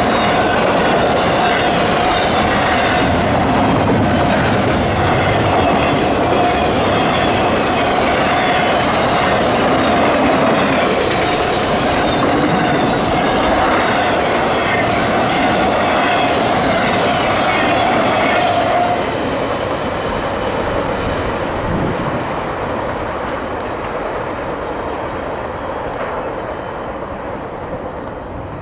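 Fast double-stack intermodal freight train passing close by: steady loud rumble and rhythmic clatter of wheels over rail joints, with a steady high-pitched wheel squeal. About two-thirds of the way through, the squeal stops and the sound drops to a quieter rumble of freight cars rolling past.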